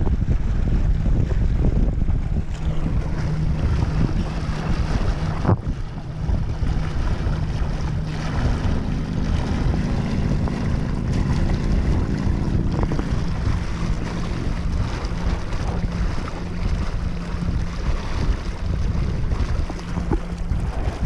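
Wind buffeting the microphone and water rushing and splashing past the hull of a small sailing catamaran under way, with a faint steady low hum through much of it. A single sharp click about five and a half seconds in.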